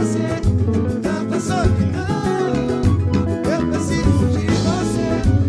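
Live pagode band playing an instrumental passage, with a pulsing bass beat under the melody instruments.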